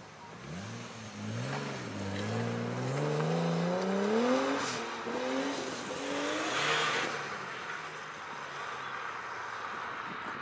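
Nissan Skyline R34's straight-six gives a quick blip of revs, then accelerates away, its note climbing through two gear changes. A short burst of hiss comes about seven seconds in, then the engine fades into the distance.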